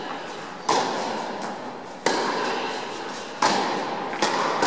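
Tennis rally: a ball struck back and forth with rackets, three sharp hits just under a second and a half apart and a lighter one near the end, each ringing on in a large hall.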